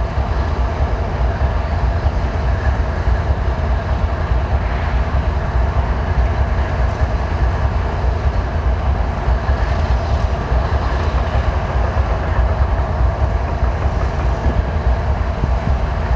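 Steady low diesel rumble of idling rail-yard machinery, with a constant hiss over it and no distinct events.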